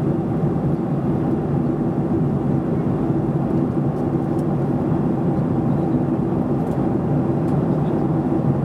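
Steady cabin noise of a Boeing 737-800 in flight at altitude, engine and airflow noise heard from a window seat behind the wing, with a low, even rumble and a faint hum.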